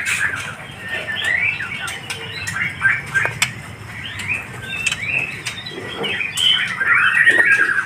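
Many caged white-rumped shamas (murai batu) chirping and calling in quick overlapping phrases, busiest near the end, with a few sharp clicks.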